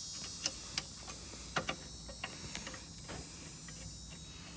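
Faint, irregular metallic clicks and ticks as a brake caliper bolt is threaded in by hand, about a dozen light taps scattered over a few seconds.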